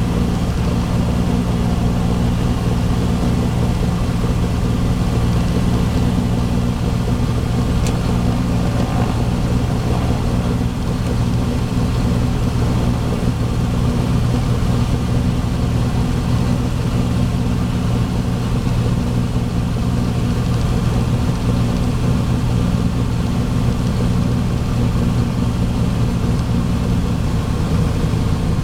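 Light single-engine airplane's engine and propeller running steadily at low taxi power, heard from inside the cockpit as an even, low hum.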